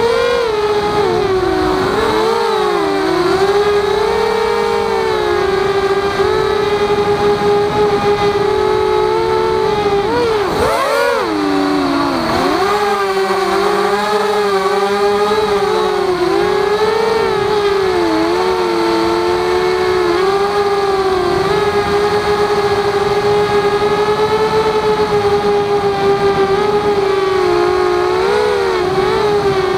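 Walkera Rodeo racing quadcopter's motors and propellers whining, heard from on board, the pitch rising and falling with the throttle. About eleven seconds in the pitch dips sharply and then recovers.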